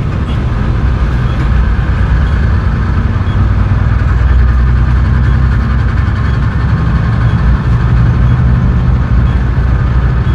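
Vehicle engine running steadily with road noise, heard from inside the cab while driving on the highway.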